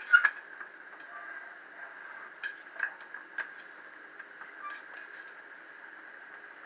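A spoon scraping and knocking against a metal pan while cooked biryani rice is stirred and fluffed: a handful of short clinks, the loudest right at the start, over a steady faint hum.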